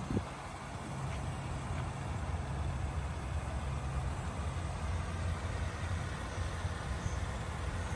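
Steady low idle of a 2004 Mercedes-Benz ML350's 3.7-litre V6 engine, with a brief thump right at the start.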